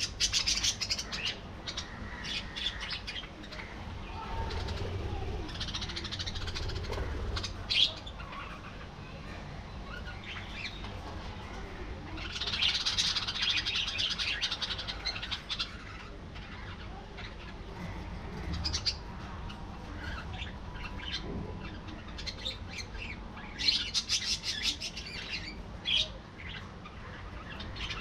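A flock of budgerigars chattering and chirping in bursts of fast warbling, with a few sharp single calls and a steady low hum under them.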